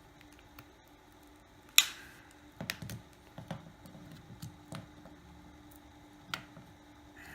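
Sharp plastic clicks and taps as a smartphone's snap-on back cover is pried loose, its clips popping; about six irregular clicks, the loudest about two seconds in.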